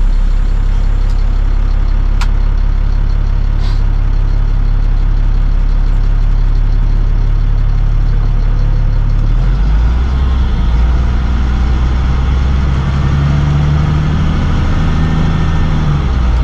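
Box truck engine heard from inside the cab, idling steadily, then changing note about two-thirds of the way through as the truck pulls away and gets moving. Two faint clicks in the first few seconds.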